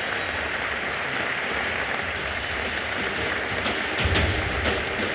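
Audience applauding. About four seconds in, music with a strong drum beat comes in over the clapping.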